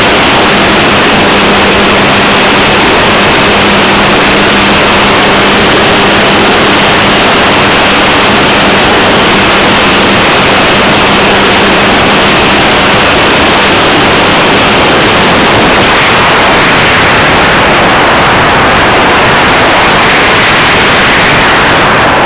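Radio-controlled model airplane in flight, heard from its onboard camera: a loud, steady rush of wind and propeller noise that overloads the small microphone. A low steady hum in it fades out about halfway through.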